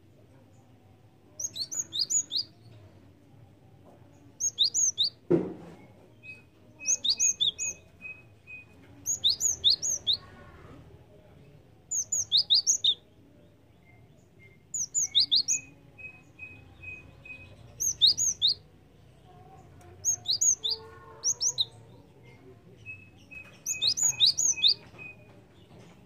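Cinereous tit (gelatik batu) singing: short phrases of three or four quick, high sweeping notes, repeated about every two to three seconds. Three times a run of even, lower piping notes comes between phrases, and there is a single sharp knock about five seconds in.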